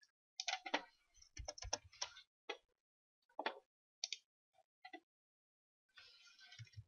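Faint, irregular clicks of a computer keyboard and mouse, about ten of them spread over several seconds, followed by a short rustle near the end.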